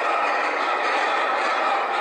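Anti-rollback pawls on the Intamin lift hill of the Expedition GeForce roller coaster clattering over the rack as the train climbs, a loud, dense, unbroken rattle. The pawls are engaging while the train moves forward, as happens when the magnetic pickup wheel slips on wet track.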